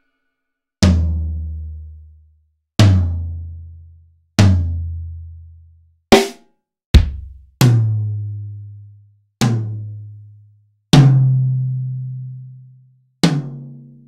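Nine single drum hits played one at a time, with gaps between them. Most are low, pitched hits that ring and die away over one to two seconds, and the ring's pitch goes up somewhat over the later hits. Two shorter, sharper hits come near the middle.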